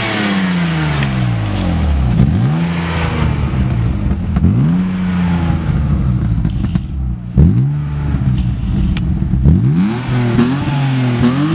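BMW E36 engine breathing through a newly installed exhaust, revved in about six quick throttle blips, each rising sharply and falling back toward idle.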